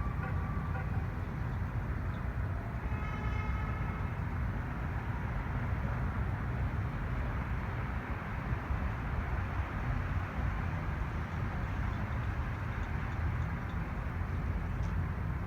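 Car horn sounding one blast of about a second, about three seconds in, over a steady low rumble of traffic noise.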